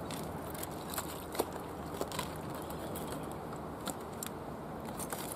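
Scattered light clicks and knocks from handling a landing net and fishing gear on rocks while netting a small fish, over a steady low outdoor hush.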